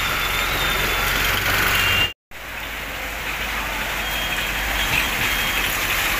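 Steady street noise from road traffic, which drops out completely for a moment about two seconds in.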